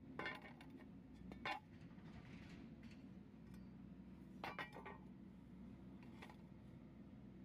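Steel plate blanks being handled and set down on a wooden board: a few light metallic clinks and knocks, the loudest about a second and a half in and a small cluster about four and a half seconds in, over a faint low hum.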